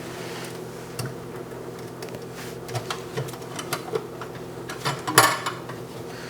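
Scattered small clicks and taps of hands handling electrical parts and tools, with a louder clatter about five seconds in, over a steady low hum.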